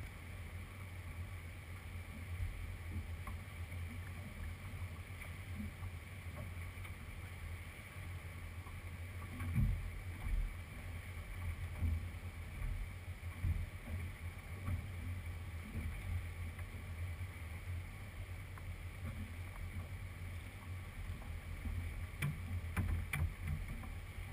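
Steady low rumble of wind and water around a small fishing boat, with irregular bumps, and a few sharp knocks and clicks near the end.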